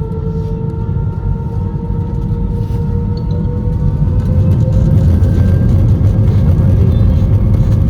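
Airbus A320's turbofan engines spooling up, heard from inside the cabin: a whine rising slowly in pitch over a deep rumble that grows steadily louder as takeoff thrust builds.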